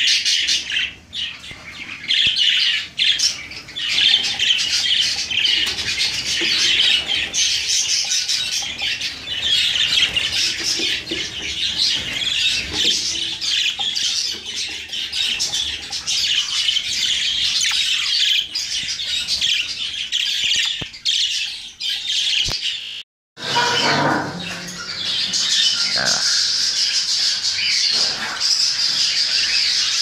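Exhibition budgerigars chattering and squawking continuously, many quick chirps overlapping. The chatter cuts out briefly about two-thirds of the way through, then resumes.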